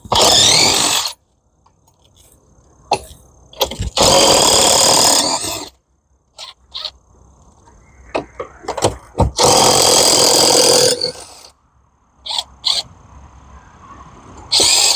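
Impact wrench spinning out fasteners that were already loosened, in three bursts of about one to two seconds each; the first whines up in pitch as it starts. Small knocks of handling fall between the bursts.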